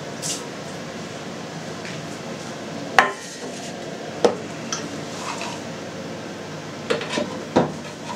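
Handling clatter at a cheese press: a sharp clank about three seconds in as a stainless steel tray and the plastic cheese mould are set down on the press's wooden base. Lighter knocks and clicks follow, and a quick cluster near the end as the mould's plastic follower lid is lifted off.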